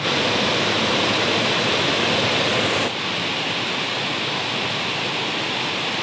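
Waterfall water rushing down over rocky cascades: a steady, loud rush of noise that drops slightly in level about three seconds in.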